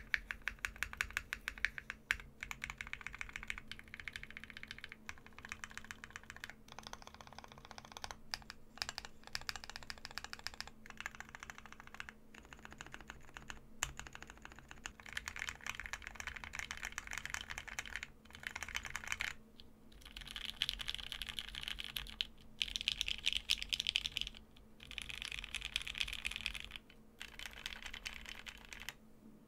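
Plateless custom 60% mechanical keyboard with JWK Lilac linear switches and ePBT PBT keycaps, clacky keystrokes: first a run of presses on the modifier keys, then, from about halfway, fast two-handed typing in bursts of a few seconds with short pauses between them.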